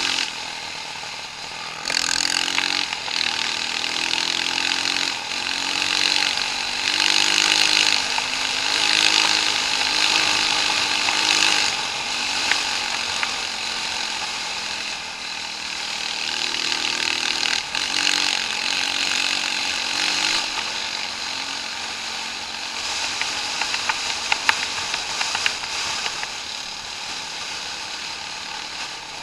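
Off-road vehicle engine running and revving, its pitch repeatedly stepping up and down, under a loud steady rushing noise.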